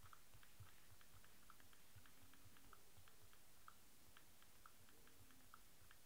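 Faint key clicks of typing on a smartphone's touchscreen keyboard, a few taps a second in an uneven run.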